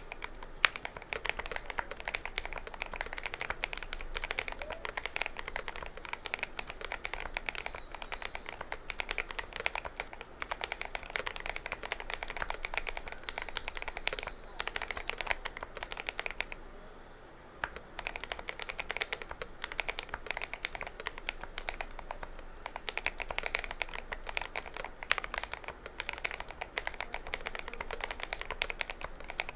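Fast, continuous typing on a GMMK Pro mechanical keyboard with stock KTT Kang White v3 linear switches, a dense clatter of keystrokes. There is a brief pause a little past the middle.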